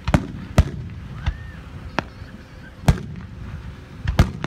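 Aerial firework shells bursting: a string of sharp bangs about once a second, two of them close together near the end, over a low rumble.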